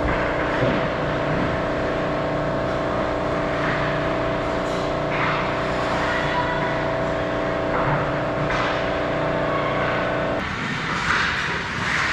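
Arena horn sounding one long steady blast for about ten seconds, then cutting off suddenly. Skate scrapes on the ice come through underneath.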